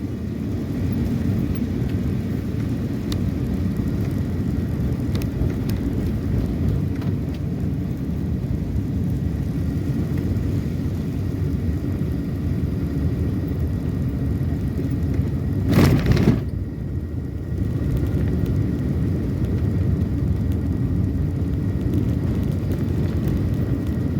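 Steady low rumble of engine and road noise from a car driving along, with a brief, louder rushing noise about sixteen seconds in.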